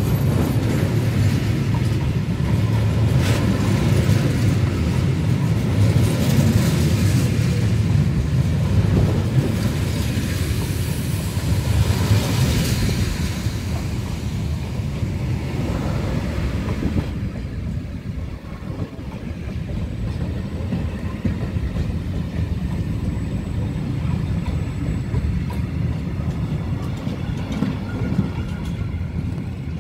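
Container freight wagons rolling past at close range: a steady rumble of steel wheels on the rails, with scattered sharp clacks. The higher hiss drops away about halfway through, leaving a duller rumble.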